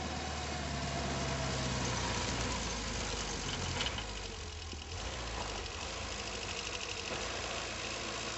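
Pinzgauer off-road truck's engine running as it pushes through deep snow. It is somewhat louder in the first couple of seconds and eases off about halfway through.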